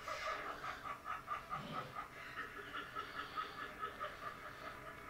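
High-pitched, rapid snickering laughter in quick even beats, about five a second, fading out after about three and a half seconds.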